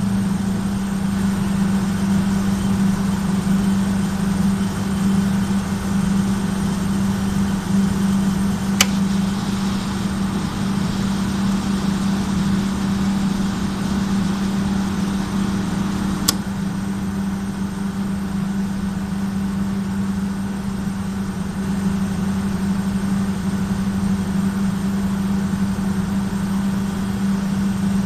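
Large industrial main drive motor running with a strong, steady low hum, the abnormal running noise that is being recorded. Two sharp clicks cut through it, about seven seconds apart.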